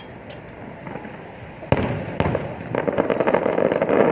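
Aerial fireworks bursting. After a quieter start, one sharp bang comes under two seconds in and a second about half a second later. Then a rapid string of crackling pops runs on toward the end.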